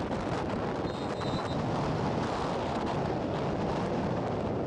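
Wind buffeting the microphone, a steady rushing noise, with a short faint high tone about a second in.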